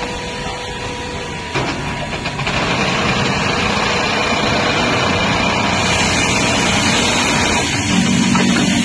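Industrial sewing machinery running on a garment-factory floor: a steady mechanical din. A steady hum cuts off about one and a half seconds in, and the noise grows louder a second later.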